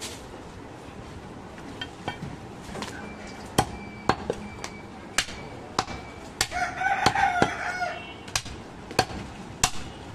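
Heavy butcher's knife chopping through a goat carcass on a tree-stump block: a dozen or so sharp strikes at uneven intervals. About six and a half seconds in, a drawn-out pitched call about a second and a half long rises over the chopping.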